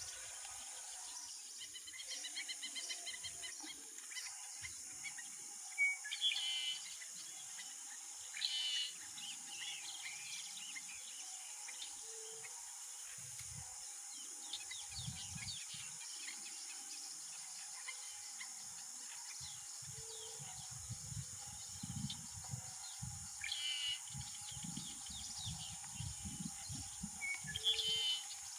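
Tropical marsh ambience: a steady high-pitched insect drone, with short bursts of bird chirps several times and intermittent low rumbles, more of them near the end.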